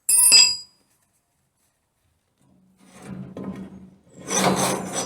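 A short metallic clank that rings with several clear tones, then after a gap of silence, rough scraping and rasping on metal in two spells, the second louder, over a steady low hum.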